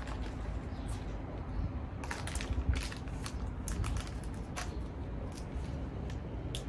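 A spoon clicking and scraping in a small jar as paste is spooned out: a scattered series of short, light clicks over a steady low background rumble.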